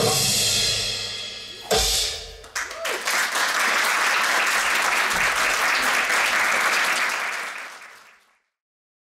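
Recorded dance music ends: its held notes fade out and a final hit lands about two seconds in. An audience then applauds for several seconds, and the applause fades away near the end.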